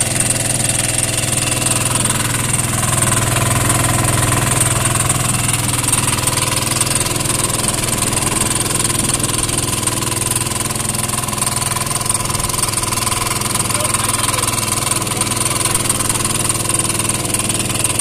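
6.5 hp four-stroke petrol boat engine running at a steady speed with the boat under way, a constant even drone throughout.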